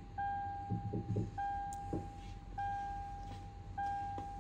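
Toyota Land Cruiser's interior warning chime sounding with the ignition on: one steady tone about a second long, repeating about every 1.2 s, four times.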